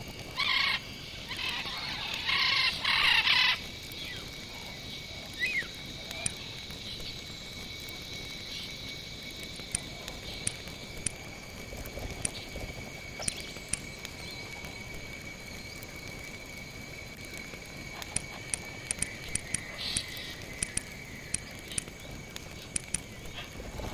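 Outdoor animal sounds: a steady high-pitched drone, like calling insects, with a few loud repeated calls in the first few seconds and scattered faint clicks later.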